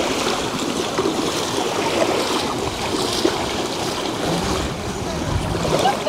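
Steady rushing and splashing of water, with indistinct voices of people around it.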